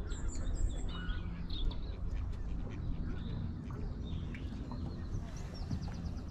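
Birds calling over open water: ducks quacking and a scatter of short, high chirps, over a steady low rumble.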